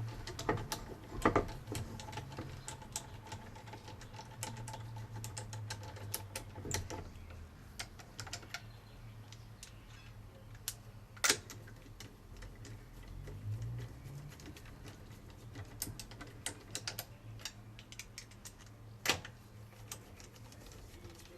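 Irregular light metallic clicks and taps, with a few sharper knocks, from wheel bolts being threaded in and tightened with a wrench on a car's rear wheel, over a low steady hum.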